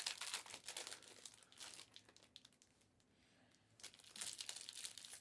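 Faint crinkling and crackling of foil trading-card pack wrappers and cards being handled, stopping for about a second in the middle and then resuming.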